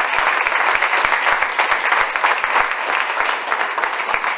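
Congregation applauding: loud, dense and steady clapping from many hands.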